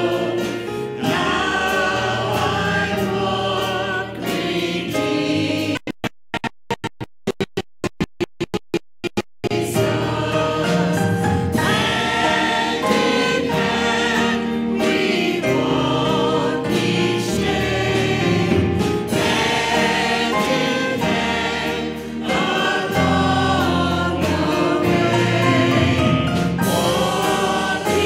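Mixed church choir singing a hymn over sustained low accompaniment notes. For about three seconds, starting some six seconds in, the sound stutters and cuts out repeatedly before the singing resumes.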